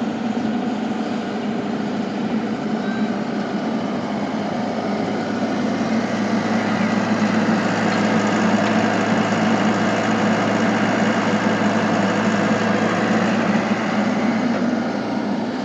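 Excavator running steadily with a low, even hum, getting a little louder from about six seconds in and easing off near the end.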